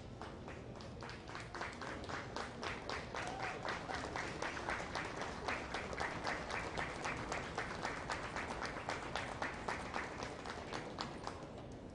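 Ringside spectators clapping in a steady rhythm of about four claps a second. The clapping grows louder about two seconds in and stops just before the end.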